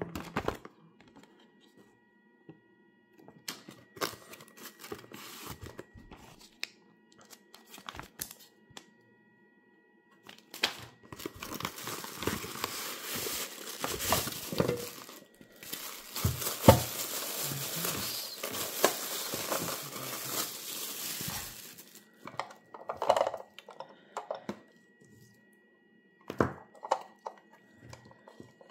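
Unboxing handling noises: scattered paper and cardboard rustles and clicks, then about ten seconds of loud crinkling of a plastic bag and rubbing of a foam insert as a small waffle maker is pulled out of its box, followed by a few knocks of handling the appliance.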